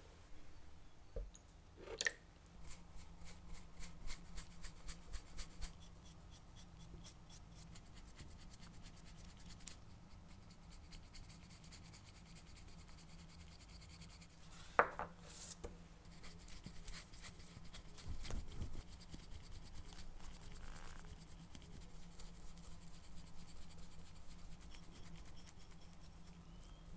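A bristle brush stroking dark stain onto small wooden parts, the handle and pusher of a cheese grater: faint scratchy brushing with runs of quick ticks. There is a sharp tap about fifteen seconds in.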